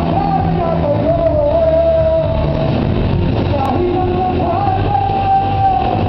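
Live rock band playing: a singer holds long, wavering notes in two phrases over electric guitars, bass and drums.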